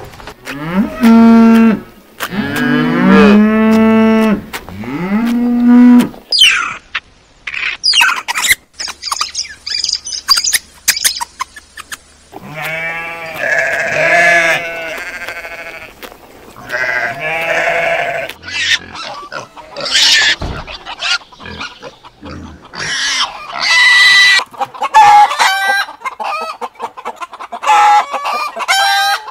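A string of animal calls. Several deep, drawn-out calls that rise and fall come in the first six seconds. Sheep bleat repeatedly in the middle, and chickens cluck through the later part.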